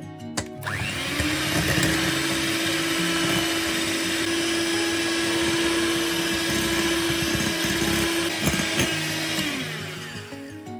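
Electric hand mixer whisking egg whites and sugar into stiff-peak meringue in a glass bowl. After a short click, the motor spins up about a second in, whirs at a steady speed with the beaters churning, and winds down near the end.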